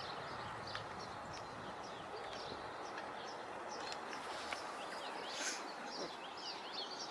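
Birds calling: many short, high chirps and ticks scattered throughout, over a steady hiss of lakeside background noise.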